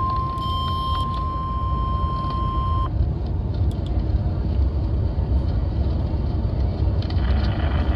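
NOAA Weather Radio warning alarm tone, a single steady 1050 Hz tone, cutting off abruptly about three seconds in. Noisy radio reception static with a low rumble runs under it and carries on afterwards, growing louder near the end.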